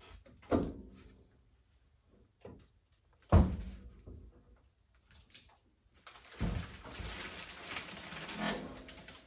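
Metal clunks from a Mustang's hood and hood-latch hardware being worked on: a knock about half a second in, a louder clunk about three seconds in, then a few seconds of scraping and rubbing with small knocks.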